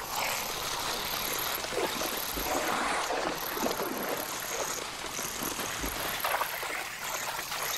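Lion cubs and a honey badger scuffling in wet marsh grass: a steady rustling, splashing noise with short growls and snarls mixed in.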